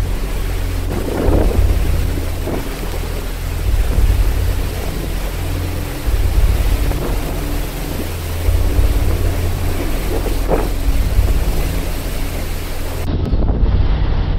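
Storm wind buffeting a phone's microphone over the rush of heavy seas and spray along a cruise ship's side. It is a loud, steady rush with a deep, uneven rumble underneath.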